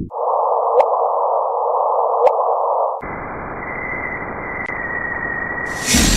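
Spacecraft radio and plasma-wave recording converted to audible sound: a band of hiss over a steady low tone with two sharp clicks, changing about three seconds in to a deeper, wider hiss with a steady high tone. A burst of bright hiss comes in near the end.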